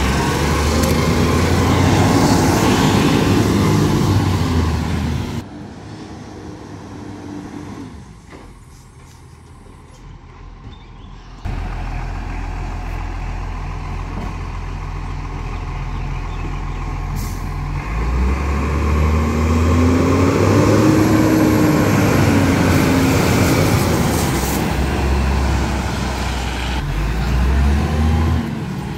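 Side-loader garbage truck's diesel engine running and revving, loud up close. It drops away after about five seconds, then comes back as a steady hum and climbs and falls in pitch as the truck accelerates past.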